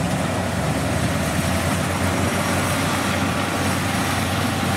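Kubota rice combine harvester cutting rice: its engine runs steadily under load, a constant low hum under a wide, even machinery noise. The engine is the original 688 unit inside a machine fitted out with DC70 parts.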